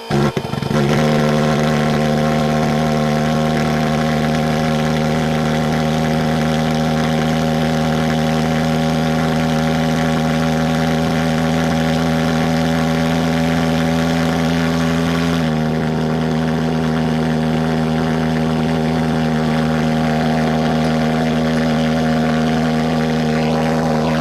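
Pulse-jet fogging machine running with a loud, steady buzzing drone. It jumps up in level about a second in and then holds at an even pitch.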